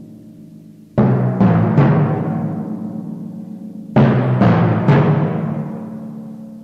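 Solo timpani: a group of three strokes about a second in and another group of three about four seconds in, each left to ring with several drum pitches and slowly die away.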